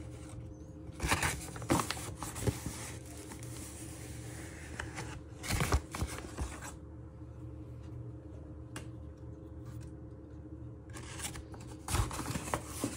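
Flour being tipped and tapped from its bag into a plastic measuring jug on kitchen scales: a few scattered rustles and soft knocks of the bag and jug over a steady low hum.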